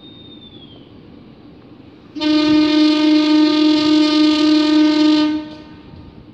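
Diesel locomotive's air horn sounding one long steady blast of about three seconds, starting about two seconds in, on a single note, then trailing off.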